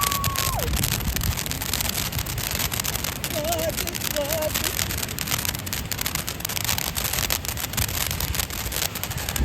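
Lit firework crackling in a dense, continuous rattle of tiny pops, over wind rumbling on the microphone.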